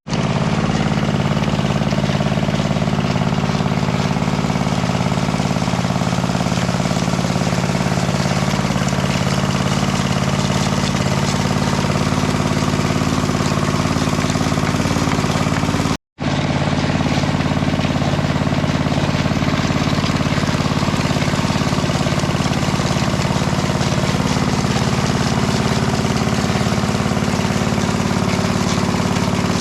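Small gasoline engine of a concrete power trowel running steadily at constant speed while finishing the slab, with a sudden brief break about halfway through.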